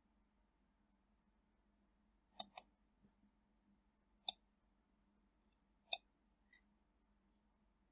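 Computer mouse button clicking: a quick double click about two and a half seconds in, then two single clicks, about four and six seconds in.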